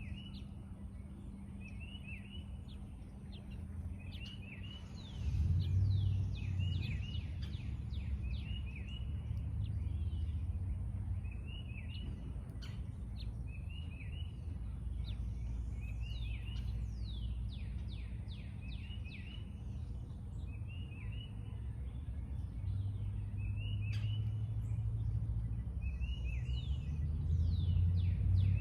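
Songbirds chirping, repeating short phrases of quick falling notes every second or two, over a steady low rumble that gets louder about five seconds in.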